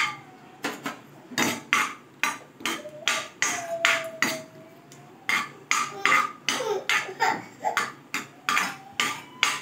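Steel ladle scraping and clinking against a steel kadai while stirring cashew nuts, a quick run of sharp scrapes and knocks about two or three a second.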